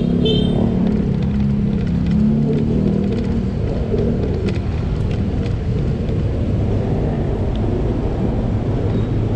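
Steady low rumble of a motor vehicle engine with road noise, its engine note strongest in the first few seconds.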